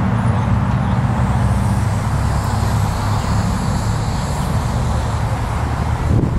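Road traffic passing: a heavy vehicle's engine running steadily under a general traffic hum, fading a little in the second half.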